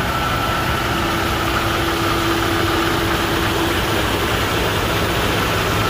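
Peterbilt semi truck's diesel engine idling, a steady low rumble. Over it runs a steady high whine, with a lower hum for the first few seconds.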